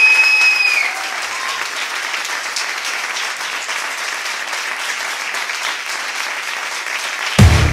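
Audience applauding steadily in a small club, with a brief high whistle at the start. Loud electronic music cuts in suddenly near the end.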